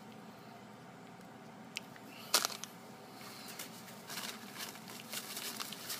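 A small click, then a sharp tap about two seconds in, followed from about three seconds on by a paper towel rustling and crinkling as it is handled.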